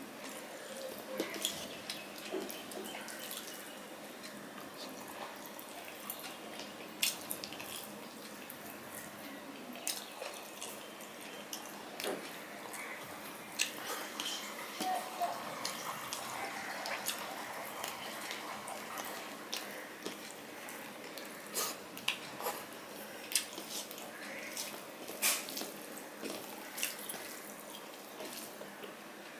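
Close-up eating sounds of rice and fish curry eaten by hand: wet mixing of rice and curry by fingers, chewing and lip smacks, with many short, sharp clicks scattered throughout.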